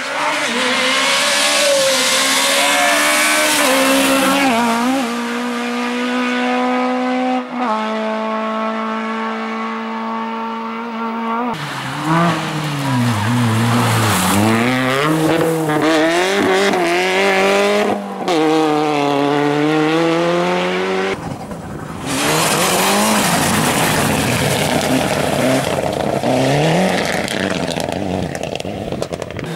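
Rally cars at speed on a stage, engines revving hard. The pitch climbs and drops with gear changes and lifts off the throttle, with some tyre squeal. The sound cuts abruptly several times from one car to the next.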